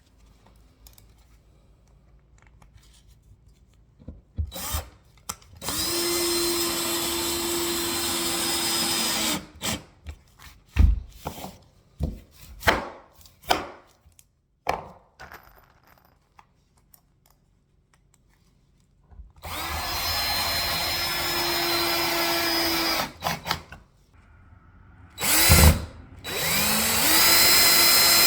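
Power drill running in three bursts of about three to four seconds each, spinning up at the start of each, working into hardwood floorboards. Sharp knocks and clicks come between the bursts.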